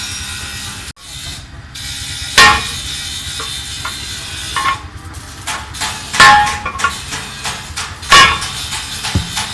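A hammer striking: three hard blows with a brief metallic ring after each, and lighter knocks between them.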